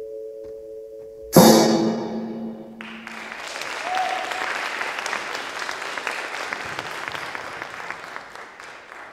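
Recorded orchestral music holds a chord, then ends on one loud percussive final stroke about a second in that rings out. Audience applause follows, running steadily for several seconds before fading out near the end.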